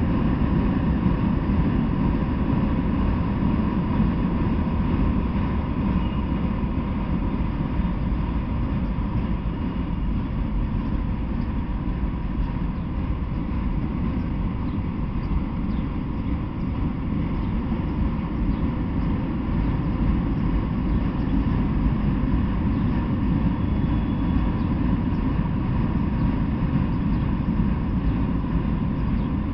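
Freight train of autorack cars and boxcars rolling steadily past, a continuous low rumble of wheels on the rails, with a faint steady tone above it.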